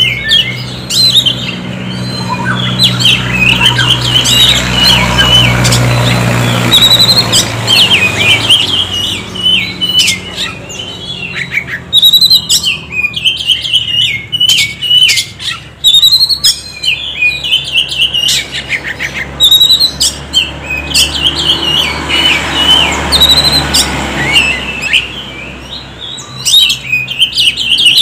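Oriental magpie-robin (kacer) singing a long, varied song of loud chirps and whistles mixed with sharp clicking notes. The song thins out about halfway through and picks up again near the end.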